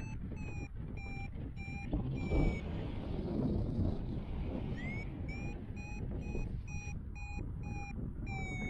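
An electronic beeper sounding rapid runs of short, even beeps, about three a second, with a pause of about two seconds in the middle. The second run starts with a short upward sweep, and the pitch sags at the end of each run. Steady low noise runs underneath.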